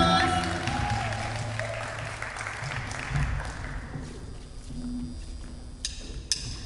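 Applause from a small audience in a large gymnasium, with the band's last chord ringing out at first, fading away over about four seconds. Two short sharp clicks come near the end.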